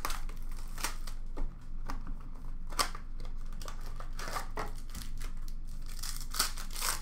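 Trading card packaging being handled and opened: a run of short crinkles, rustles and soft clicks as a card box and its wrapped pack are worked open by hand.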